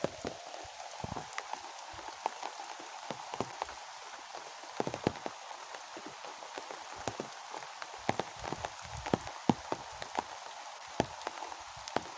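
Rain falling: a steady hiss with many irregular, sharp drops hitting a surface close by.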